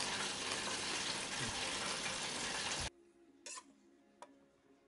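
Hot oil sizzling steadily as chicken deep-fries, cutting off abruptly about three seconds in. Then a quiet stretch with two light clicks.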